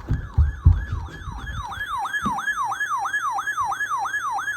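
Electronic siren-style alert tone in a fast yelp: a falling sweep repeated about three times a second, growing louder over the first two seconds. A few dull low thumps sound in the first second.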